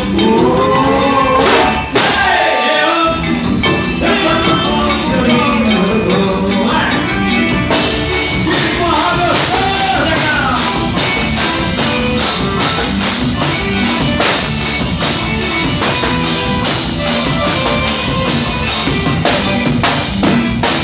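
Live forró band music with a steady dance beat and percussion. A melodic line bends up and down near the start and again about ten seconds in.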